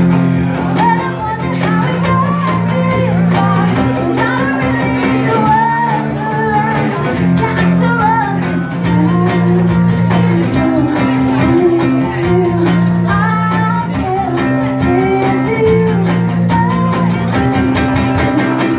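Live song: a woman singing into a microphone, accompanied by a strummed acoustic guitar.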